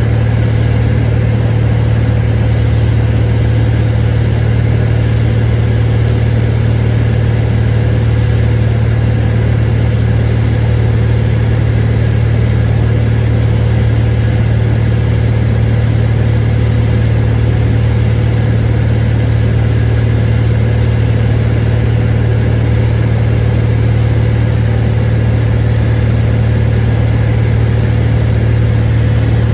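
Cabin noise of a 1958 Cessna 182 Skylane in flight: the six-cylinder Continental O-470 engine and propeller drone steadily at a constant setting, with a low hum and rushing air, heard from inside the cabin.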